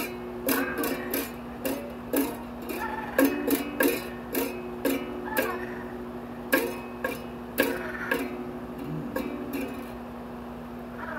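Irregular plucked string notes, about two a second, each a sharp attack with a short ring, over a steady low hum; the notes thin out and stop near the end.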